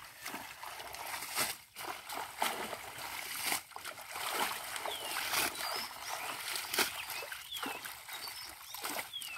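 Water splashing and sloshing in irregular strokes as a hand net is worked through floating water hyacinth.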